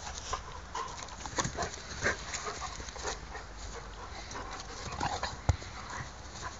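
Two dogs play-fighting, with short irregular dog vocal sounds and scuffling. A single sharp click about five and a half seconds in is the loudest sound.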